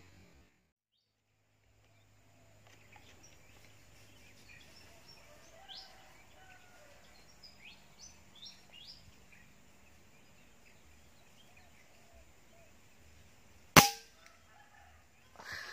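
A single shot from a PCP air rifle, one sharp crack near the end, followed about a second and a half later by a softer, duller noise. Before the shot, faint short chirps of small birds.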